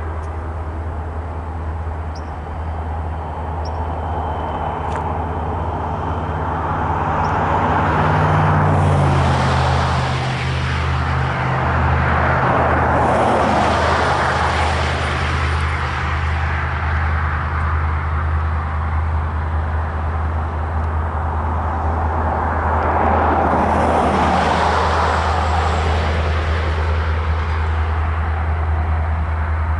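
Road vehicles passing by several times, each swelling and fading, over a steady low engine rumble.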